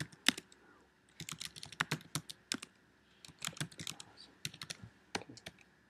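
Typing on a computer keyboard: quick runs of key clicks broken by short pauses, about a second in and again near the middle.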